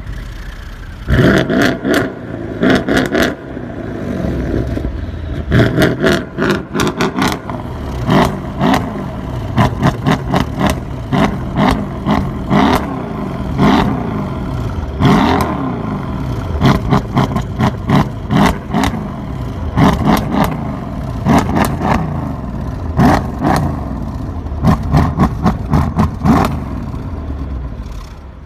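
Performance car engine revving up and down repeatedly, with rapid clusters of sharp exhaust pops and bangs between the revs.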